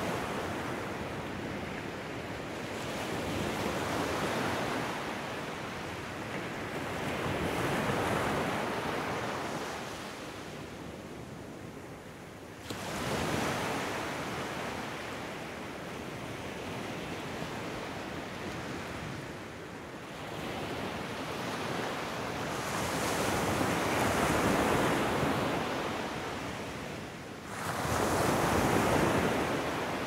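Ocean waves breaking and washing up a shore: a steady rush of surf that swells and ebbs every few seconds, with two sudden louder surges, one about halfway through and one near the end.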